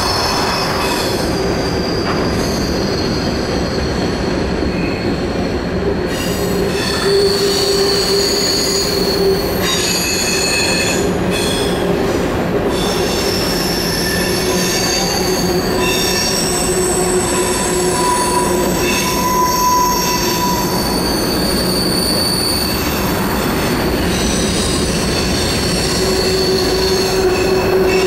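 Empty covered hopper cars of a long freight train rolling through a curve, their wheels squealing against the rail. Several high squeal tones come and go over the continuous rumble of wheels on track.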